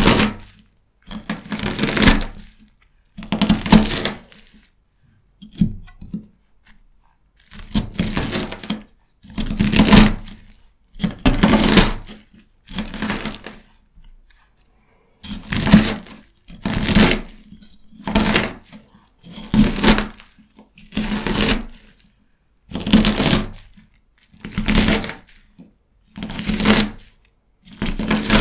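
A knife cutting through crisp celery stalks, each cut a short crunch, repeating about once a second with a brief pause about halfway through.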